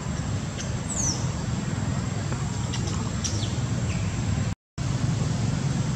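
Outdoor ambience: a steady low rumble under a thin, high, steady tone, with a single bird call falling in pitch about a second in and a few faint ticks. The sound cuts out completely for a moment near the end.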